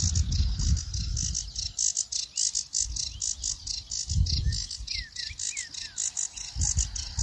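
Small birds calling in reedy wetland: a high chirping repeated evenly about six times a second, with a few short falling chirps about five seconds in. Wind rumbles on the microphone at the start, about four seconds in and near the end.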